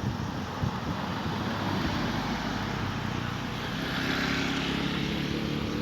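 A bus engine rumbling by the roadside, growing louder about two-thirds of the way in with a rush of hiss and a steady engine note.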